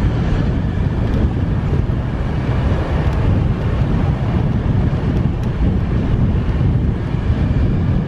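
Car driving with a steady low rumble of road noise and wind buffeting the microphone.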